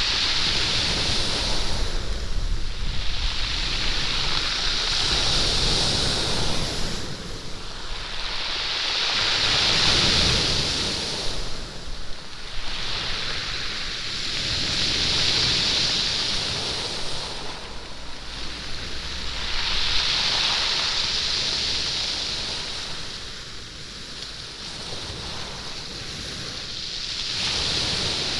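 Sea waves washing over a pebble beach, the stones rolling and rattling in the surf. The hissing rush swells and falls back about every five seconds.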